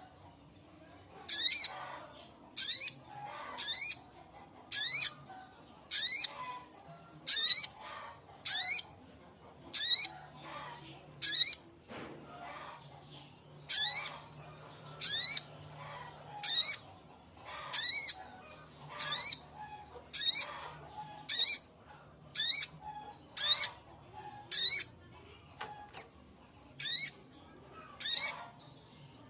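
A male little spiderhunter (sogok ontong) calling for a female: a series of short, high, sharp notes, about one every second and a quarter, with two brief pauses.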